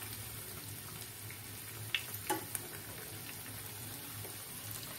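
Poha-and-potato balls deep-frying in oil, a steady, quiet sizzle. A few light clicks around two seconds in as the balls are turned with a spoon in the pan.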